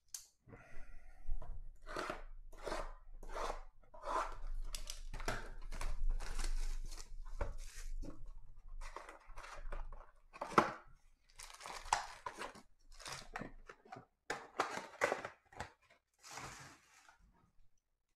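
A 2020 Panini Mosaic football hobby box being torn open by hand: an irregular run of ripping and crinkling of its wrapper and cardboard, with one louder rip about ten seconds in, and the foil card packs rustling as they are pulled out and set down.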